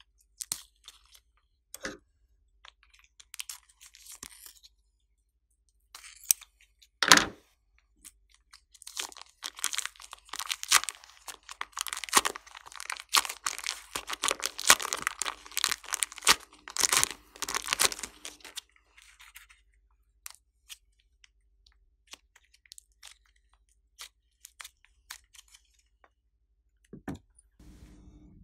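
Slime being squished and mixed by hand, with wet crackling and popping. The crackling is densest from about nine to eighteen seconds in, and there is one loud knock about seven seconds in.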